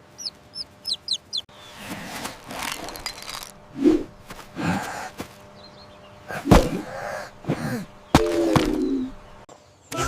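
A baby chick peeping, a string of short high chirps in the first second or so. Cartoon sound effects follow: swishing noises, several sharp knocks and a falling pitched squeak near the end.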